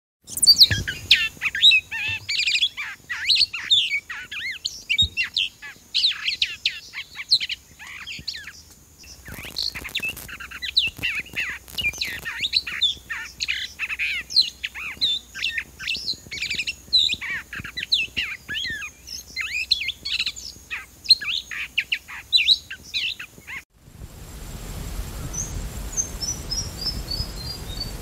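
A dense chorus of small songbirds chirping and twittering, many calls overlapping. About 24 seconds in it cuts to a hissy recording in which a rufous fantail gives a short run of high notes that step down in pitch.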